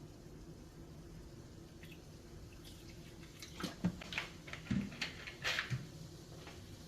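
Water simmering faintly in a pan of chicken hearts, with a few light clicks and knocks a little past halfway.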